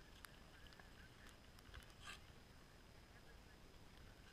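Near silence: faint outdoor quiet with a few light clicks and a brief faint scrape about two seconds in.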